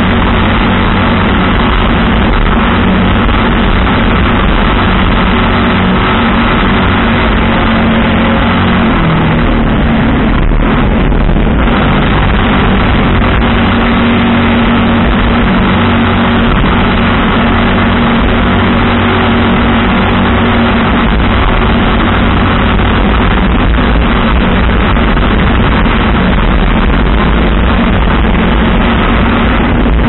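Race jet boat's engine running hard and steady at racing speed, heard from inside the open cockpit, mixed with rushing water and wind noise.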